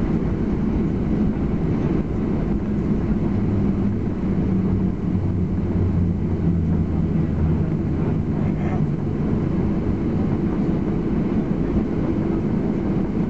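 Cabin noise of a Ryanair Boeing 737 rolling down the runway after touchdown: a steady low rumble of engines and wheels with a droning hum.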